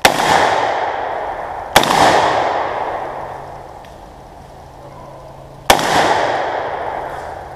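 Three loud gunshots fired close by, the second about two seconds after the first and the third about four seconds later, each followed by a long echo that dies away over a couple of seconds.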